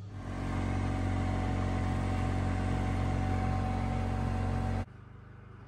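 Engine of a small vehicle running steadily while towing a loaded utility trailer, cutting off suddenly near the end.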